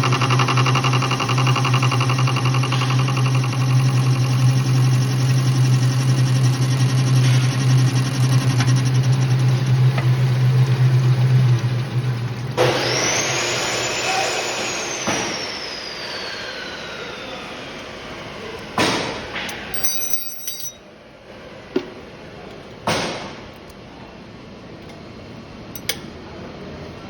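Traub machine tool running steadily through a milling cut, with a strong low hum. About halfway through it shuts down: a high whine glides down as the machine winds down. A few separate clunks follow.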